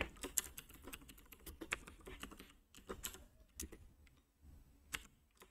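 Faint computer keyboard typing: irregular keystrokes, thinning out toward the end.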